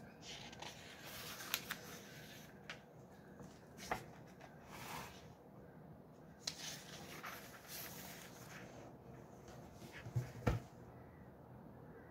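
Pages of a hardcover book being turned and handled on a table: paper rustling and scattered soft taps and clicks. A dull thump with a couple of clicks about ten seconds in is the loudest sound.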